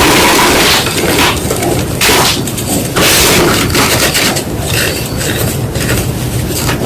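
White gym chalk crunching and crumbling close to the microphone, in a string of loud, gritty, irregular crunches about a second apart.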